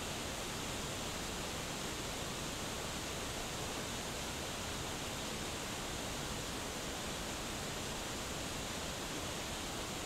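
Small waterfall spilling down a rock face: a steady, even rush of falling water.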